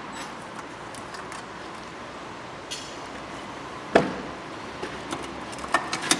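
Quiet workshop background with one sharp knock about four seconds in, then a run of light clicks near the end as hands work the plastic fuel filter casing in the wheel arch.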